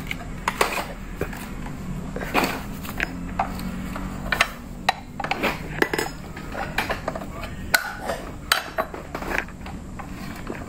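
A metal wrench clinking and clicking against the arbor bolt and blade flange of a Makita miter saw as the blade bolt is tightened: scattered, irregular sharp metallic clicks over a low steady hum.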